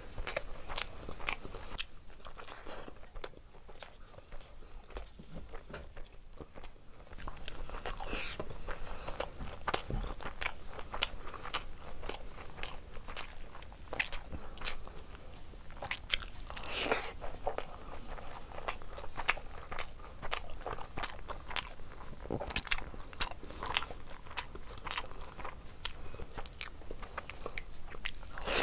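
Close-miked eating sounds: wet chewing and frequent lip smacks as handfuls of rice and egg curry are eaten by hand, with the squish of fingers mixing rice into gravy. The eating is a little quieter for a few seconds near the start.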